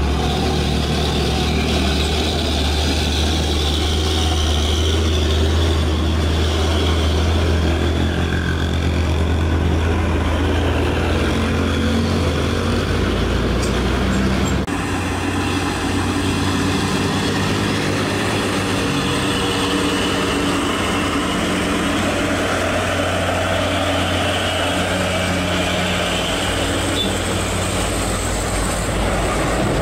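Heavy diesel truck engines (Hino and Mitsubishi Fuso) pulling under load up a grade as a line of trucks passes close by, a steady low drone with road noise. The sound changes abruptly about halfway through.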